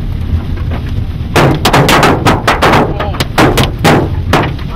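Large hailstones striking the van's roof, body and cracked windshield in loud, irregular cracks, sparse at first and then coming thick and fast from about a second and a half in, over a steady low rumble.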